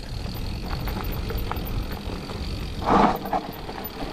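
Mountain bike rolling fast down a gravel trail: wind rumbling on the camera microphone, tyres crunching over gravel, and short clicks and rattles from the bike, with one louder jolt about three seconds in.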